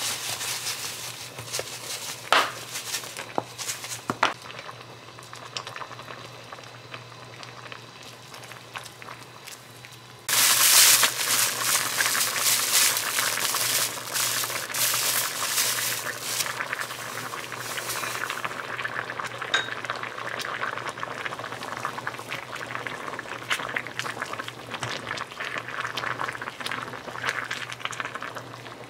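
Food going into a hot pan: a sudden loud sizzle about ten seconds in that settles into a steady crackling sizzle. Before it, a few light clinks of kitchen utensils.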